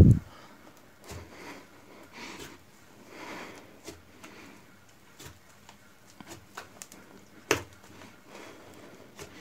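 A large batch of pink slime being worked by hand: a heavy slap as it is slammed down at the start, then soft squelching and sticky pulling as it is stretched and folded, with small crackles of air. About seven and a half seconds in comes one sharp pop of trapped air.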